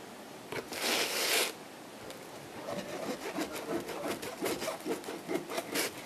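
A person chewing a slice of pizza close to the microphone: irregular small wet clicks and crackles over a few seconds, after a short rasping hiss about a second in.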